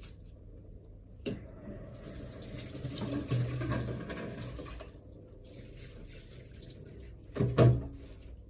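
Kitchen tap running into a sink for a few seconds, with a click about a second in and a brief loud bump near the end.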